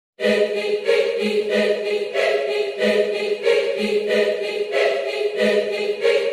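Music with choir-like voices singing sustained notes, starting abruptly from silence.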